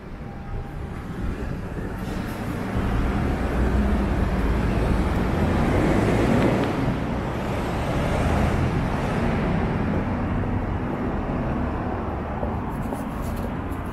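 Road traffic on a city street, with a vehicle passing close by: the rumble swells to its loudest about six seconds in, then fades.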